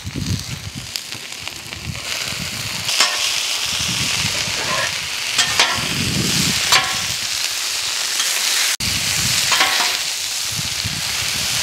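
Salt fish and onions sizzling on the hot steel top of a Blackstone propane griddle, stirred and tossed with two metal spatulas that scrape the steel and clink together sharply several times.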